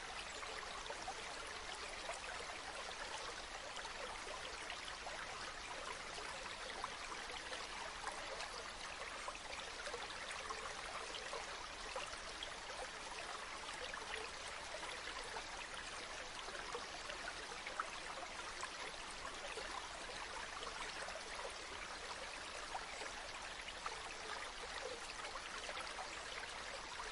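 A flowing stream running steadily over rocks, an even rush of water with small splashes and trickles scattered through it.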